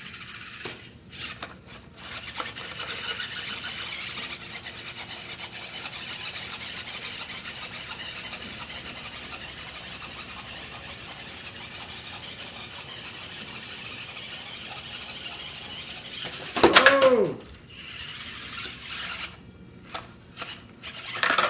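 Mini RC crawler's RC4WD micro electric motor and gear drivetrain whirring steadily under load as the truck climbs a steep plank. A short loud sound comes near the end, followed by a few light knocks.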